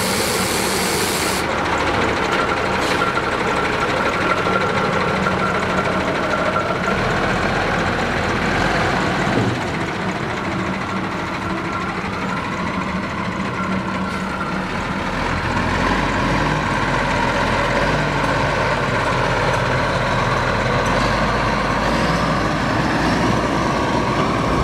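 Cummins 6CTA8.3 turbocharged inline-six diesel of a 1990 BMY M939A2 5-ton 6x6 army truck running as the truck drives past, its pitch slowly rising and falling. A brief hiss sounds in the first second or so.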